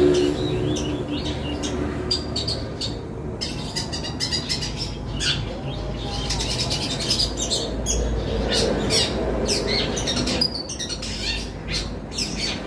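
Long-tailed shrike (cendet) singing a rapid, continuous run of harsh chirps and chatters that mimic fighting Eurasian tree sparrows. A low hum lies under the first couple of seconds.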